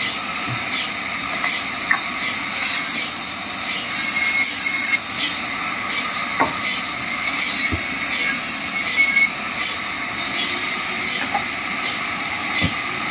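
Large vertical band saw ripping a log: a steady high hiss of the blade cutting the wood, pulsing evenly about twice a second, with a few short knocks from the log being handled on the table.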